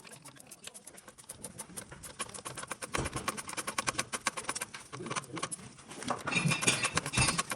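Rapid run of even clicks, roughly ten a second, with a louder knock about three seconds in and a busier stretch of clicking and knocking near the end.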